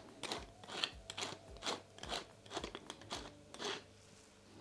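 Hand-twisted wooden pepper mill grinding peppercorns: a run of short crunches, about two a second, that stops shortly before the end.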